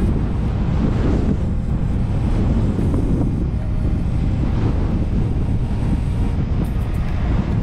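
Wind buffeting the microphone of a car driving along packed beach sand, over a steady low rumble that swells and eases every second or two.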